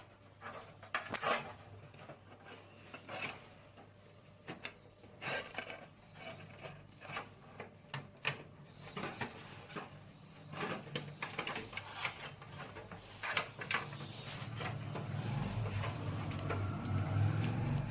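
Irregular clicks, taps and rubbing of computer parts and the plastic and metal case being handled during PC assembly. A low hum builds over the last few seconds.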